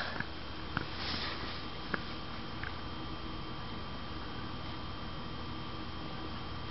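Steady electrical hum with faint constant high tones, broken by three faint clicks in the first three seconds.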